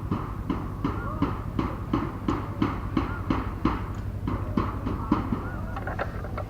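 A steady run of short knocks, about three a second, with faint voices in the background.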